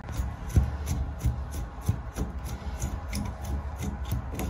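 Metal screwdriver scraping and clicking in the corroded centre socket of a chrome cross-handle shower valve handle, working at the handle screw: a run of short, irregular scrapes.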